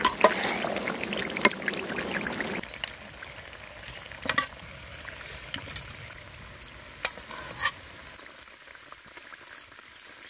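Chicken pieces sizzling in oil in a two-handled wok while a metal spatula scrapes and knocks against the pan. The sizzling cuts off abruptly about two and a half seconds in, leaving a few sharp metal clicks as tongs and spatula lift pieces out.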